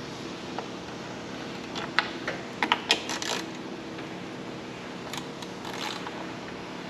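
A quick cluster of sharp clicks and light rattles about two seconds in, and a few fainter ones later, from hand tools and small bolts being handled while body panels are unbolted. A steady low hum sits behind them.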